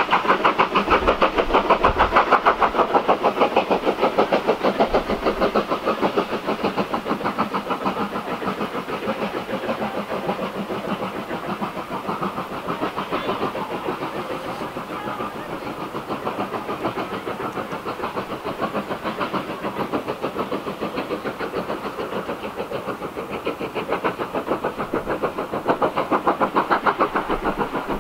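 Exhaust beats of a USATC S160 2-8-0 steam locomotive chuffing steadily at about four beats a second while out of sight. The beats ease somewhat through the middle and grow louder again near the end.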